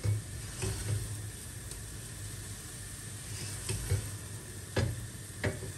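Silicone spatula stirring and scraping a thick choux-style flour, butter and milk dough around a stainless steel saucepan as it cooks over low heat, with a few sharper knocks of the spatula against the pan near the end.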